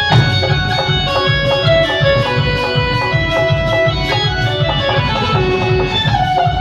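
Music: a song with a steady bass beat and a plucked-string melody, played loud for a sound check.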